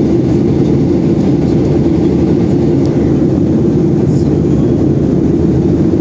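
Steady, loud in-flight cabin noise of a Boeing 737-800 airliner: the low, even sound of its jet engines and the air rushing past, heard from inside the passenger cabin, with a few faint ticks.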